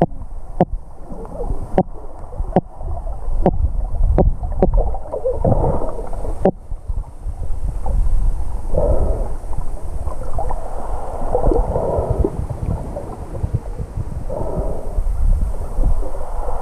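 Muffled underwater sound picked up through a waterproof camera housing: a steady low rumble of moving water, with a string of sharp, irregular clicks over the first six seconds, then muffled whooshing swells every two to three seconds.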